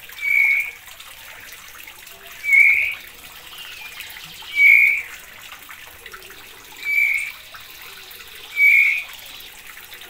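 Songbird nestlings giving begging calls to be fed. There are five short, raspy calls, each about half a second long and roughly two seconds apart, with a faint steady hiss between them.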